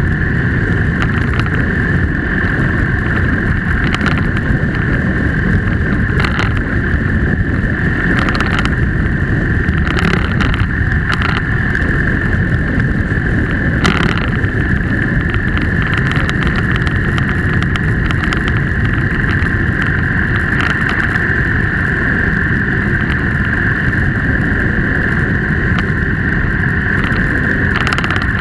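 Steady wind buffeting and road and engine rumble picked up by a camera on a moving motorcycle, with a constant high hum and a few brief knocks from bumps in the road.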